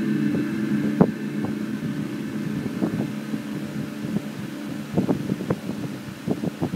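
Electric guitar chord ringing out through the amp and slowly fading, with scattered light clicks and taps over it, more of them near the end.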